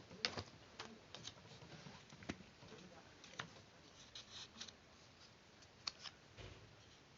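Faint, scattered small clicks and snips of hands working paper with craft tools, with a quick cluster about two-thirds of the way through.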